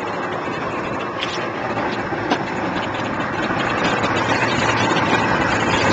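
Twin outboard motors on a Contender 27 centre-console boat idling steadily, with a single sharp knock about two seconds in.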